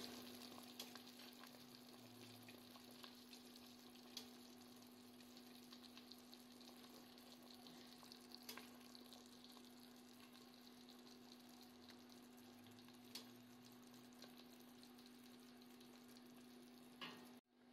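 Faint simmering of a stockpot of chicken soup: a soft steady hiss with a few small pops, over a steady low hum.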